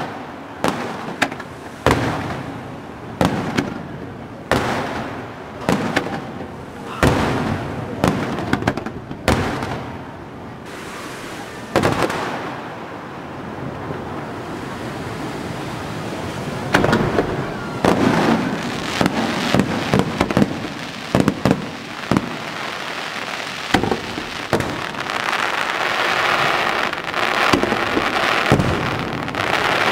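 Aerial firework shells bursting in quick succession, with sharp bangs about once a second for the first dozen seconds. After that a denser crackling and hissing from crackle stars takes over, with scattered bangs, building toward the end.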